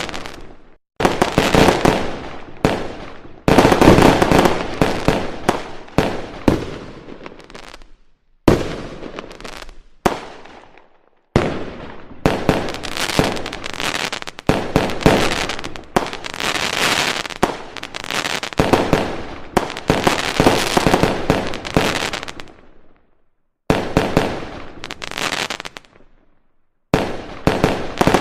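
Fireworks display: aerial shells going off in rapid, dense volleys of bangs and crackling, in several stretches that stop and start abruptly.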